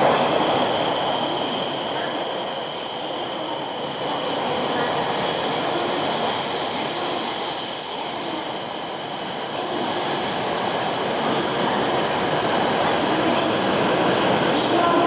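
Shinkansen train at the platform: a steady mechanical hiss with a constant high-pitched whine over it.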